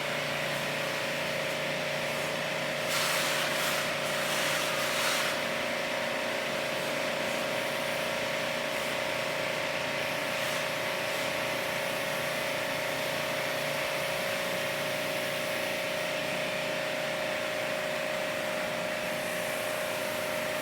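A high-pressure washer's motor running at one steady pitch over a constant hiss, with a louder burst of spraying about three seconds in that lasts about two seconds, as water is sprayed during air conditioner cleaning.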